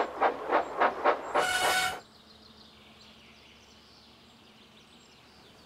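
Steam locomotive chuffing in a quick, even rhythm of about four puffs a second, with a short whistle about one and a half seconds in. Then it cuts off abruptly, leaving a faint outdoor background with birds.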